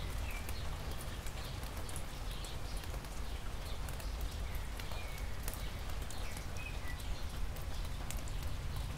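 Steady rain falling on wet asphalt and grass, with close raindrops tapping sharply and irregularly over a low steady rumble.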